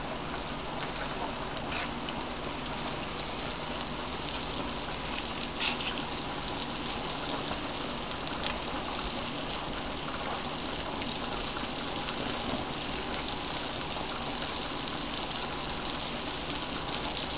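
Hot oil sizzling and bubbling steadily around flour-coated mashed-potato balls deep-frying in a pan, with a few light clicks of metal tongs as the balls are turned over.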